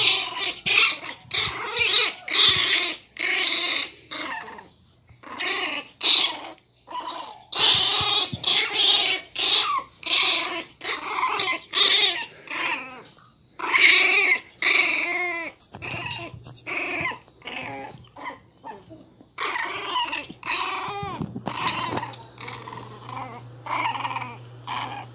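Miniature pinscher puppies growling and yapping in rapid short bursts, with a few higher yelps, while they play-fight.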